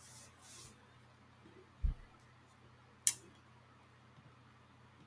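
A single sharp computer mouse click about three seconds in, with a short dull low thump a second before it, over a faint steady low hum.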